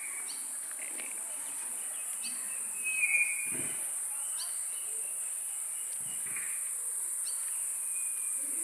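Outdoor nature ambience: a steady high-pitched insect drone, with short bird chirps every two seconds or so and one louder call about three seconds in. There are also a couple of soft thuds.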